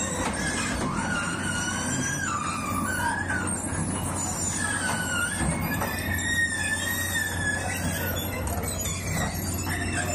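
Komatsu PC200 amphibious excavator driving down off a lowboy trailer, its pontoon track chains squealing in drawn-out, wavering tones over the steady low hum of its diesel engine.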